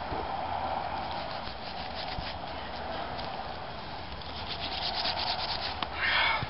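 A knife sawing and slicing through a wild hog's thick hide and gristly shoulder shield, in a run of quick short strokes, with a louder scrape near the end.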